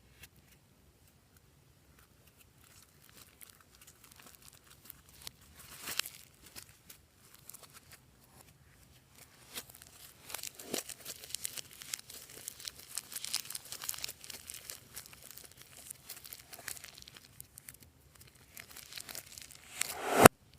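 Slime being squeezed and stretched by hand, giving irregular crackling and crinkling clicks. A few scattered clicks build to a dense run of crackles in the middle, and the loudest sharp crackle comes near the end.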